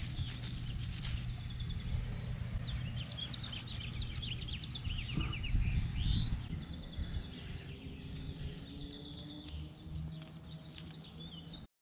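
Small birds chirping and trilling repeatedly over a low outdoor rumble, with scattered clicks and rustles of hands pulling plants. The sound cuts off suddenly near the end.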